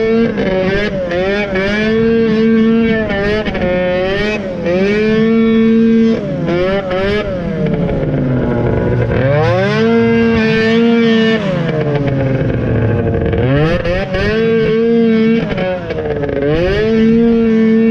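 Snowmobile engine running hard under throttle, its pitch holding high, then dropping and climbing again over and over as the throttle is eased and reopened, with two longer drops about halfway through and near three quarters of the way.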